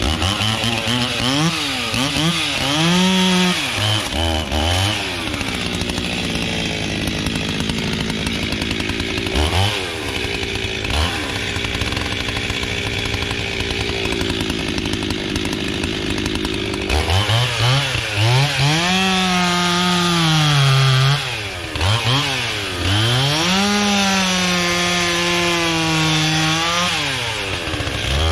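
Chainsaw revving and cutting logs, its engine pitch repeatedly dropping under load and rising again.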